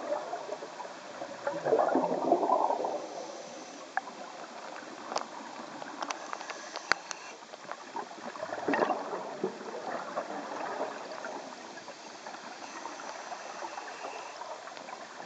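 Underwater sound of scuba divers' exhaled air bubbling up from their regulators. It comes as two louder gurgling bursts, about two seconds in and again about nine seconds in, over a steady underwater hiss. Scattered sharp clicks are heard throughout.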